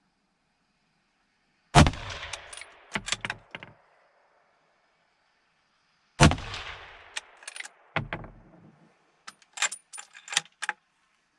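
Two rifle shots from a 6.5x55 Varberger, about four seconds apart, each with an echoing tail, followed near the end by a run of short clicks.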